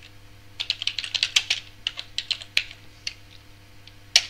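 Typing on a computer keyboard: a quick run of keystrokes for about two and a half seconds, then a single louder key press near the end as the typed command is entered.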